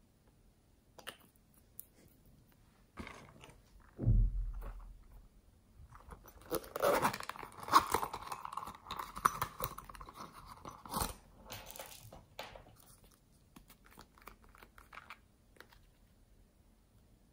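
Small objects being handled over a glass slime dish. A dull thump comes about four seconds in. Then comes several seconds of scratchy rasping as the zipper of a small orange zip pouch is worked open, ending in a sharp click about eleven seconds in, with light scattered taps around it.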